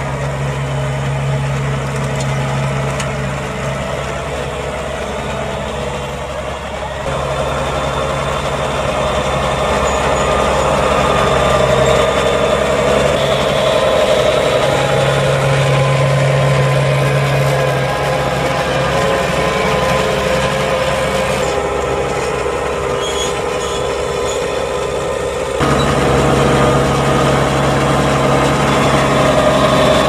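New Holland T7.185 tractor's six-cylinder diesel engine running steadily under load while pulling a five-furrow reversible plough through the soil. The sound shifts abruptly about seven seconds in and again near the end.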